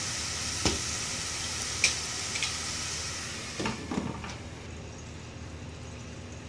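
Onion-tomato masala sizzling in oil in a nonstick saucepan, with a few light clicks. About four seconds in, a glass lid clinks down onto the pan, and the sizzling goes quieter and duller under it.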